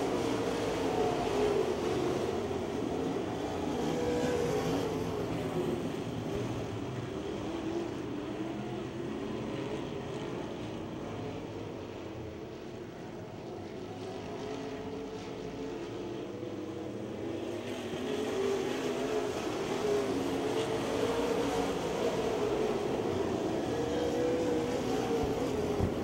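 A pack of dirt modified race cars running at speed around a clay oval, several V8 engines overlapping with their pitch wavering up and down through the turns. The sound fades somewhat around the middle and swells again in the second half.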